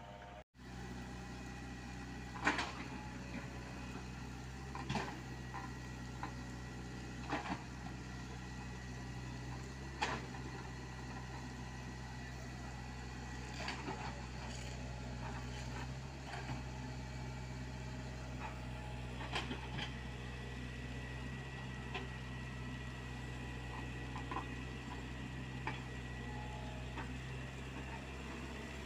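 Komatsu PC75UU mini excavator's diesel engine running steadily while it works, with sharp clanks every few seconds from the machine digging and moving material.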